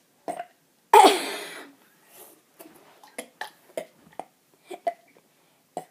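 A child's single loud burp about a second in, followed by a scatter of faint small clicks and taps.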